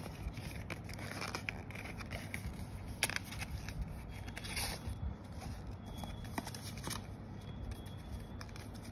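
Paper documents from a phone box being handled and opened: soft paper rustling with scattered light clicks and taps, one sharper tap about three seconds in.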